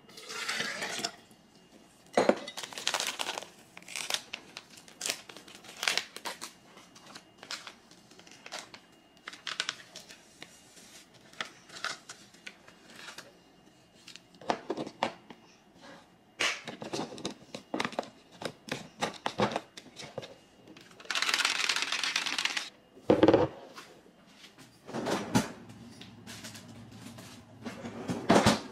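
Kitchen handling sounds: rustling and crinkling of packaging with scattered clicks and knocks of dishes. There is a longer rustle about three-quarters of the way through, followed by a sharp knock.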